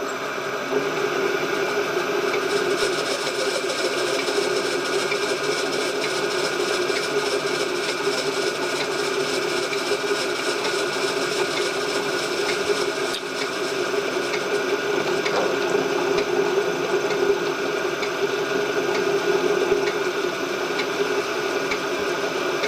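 Metalworking machine switched on and running steadily at slow speed, a constant motor and spindle hum with some rattle, for countersinking drilled holes in a switch plate. It starts abruptly at the very beginning.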